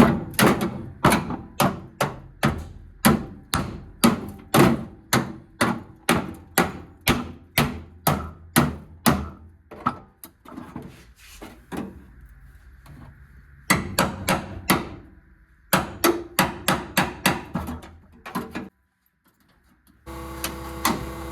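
Hammer blows, about two a second, in one long run and then two shorter runs after a pause. A steady hum starts near the end.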